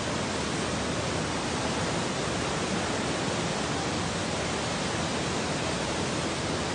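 A swollen, muddy river in flood after heavy rain, rushing and churning in a steady, even torrent.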